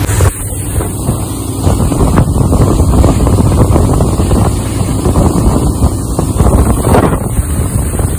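Wind buffeting the microphone hard over the steady drone of twin 150 hp outboard motors running at speed and the rush of the boat's wake.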